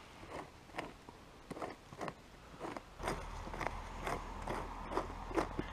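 Hand digging in soil and dry leaf litter: irregular small scrapes and crunches, several a second, with a faint low rumble setting in about three seconds in.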